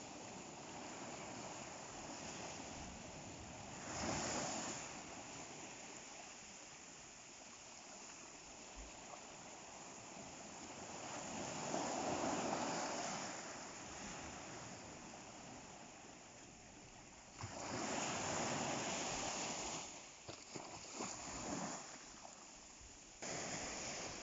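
Sea waves breaking and washing up the shore: a steady surf hiss with several louder surges, each swelling and falling away, and a brief fizzing wash a little after the third.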